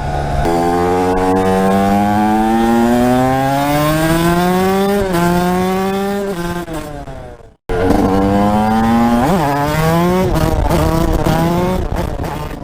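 TM 125 SMR supermoto engine accelerating through the gears: the pitch climbs in long sweeps and drops briefly at each upshift. The sound cuts out abruptly about seven and a half seconds in, then comes back with another run up through the gears.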